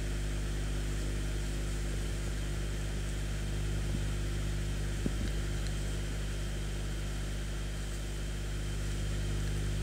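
Steady low hum of room background noise, unchanging throughout, with one faint tap about five seconds in.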